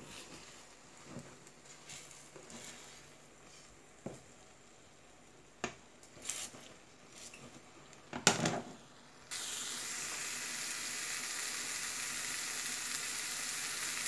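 A spatula scrapes and taps in a frying pan as a grated potato, bacon and egg omelette is worked, with one louder clatter just after eight seconds. About nine seconds in, a steady sizzle cuts in suddenly: the omelette frying on medium heat.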